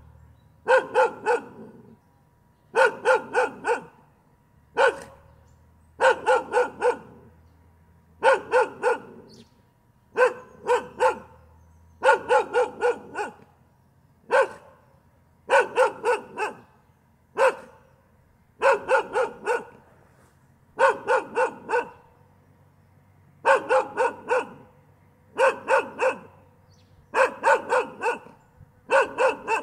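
A dog barking continuously in quick volleys, mostly three or four sharp barks at a time with the odd single bark, repeating about every two seconds.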